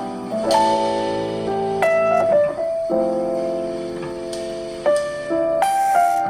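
Background music: a piano-led track playing sustained chords that change every second or two.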